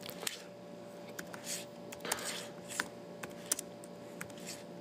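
Irregular clicks and taps from an HP laptop's keyboard and touchpad, with a couple of soft rustles, over a faint steady electrical hum.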